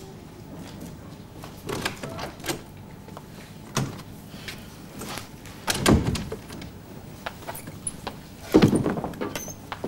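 A door opening and closing, among a few scattered knocks and thuds, the loudest about six and eight and a half seconds in.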